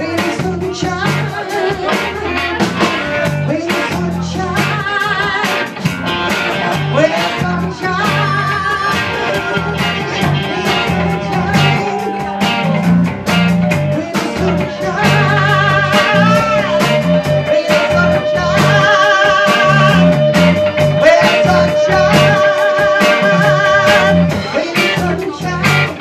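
A live band playing a blues-rock song: electric guitars, bass guitar and a drum kit, with singing over the top and a long held note through the second half.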